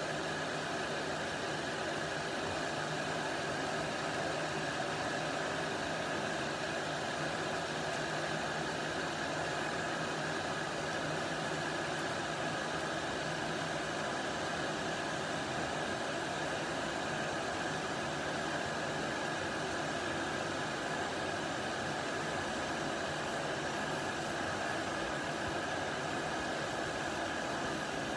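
Planet X Jobsworth X2 canister gas stove's burner running with a steady hiss as it heats water in its pot toward the boil.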